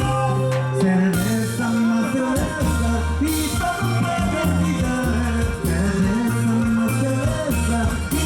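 Live Latin band music: a rhythmic dance tune with a moving bass line, percussion and singing.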